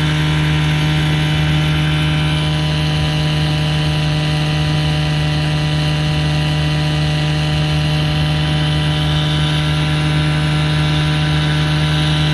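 Veterok-8 two-stroke outboard motor, fitted with a Stihl MS 660 chainsaw carburettor, running at full throttle under load, its pitch steady and unchanging.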